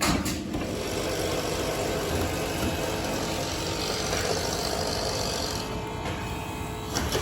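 An engine running steadily at a constant speed, with a hiss that stops a little over two-thirds of the way through and a sharp knock near the end.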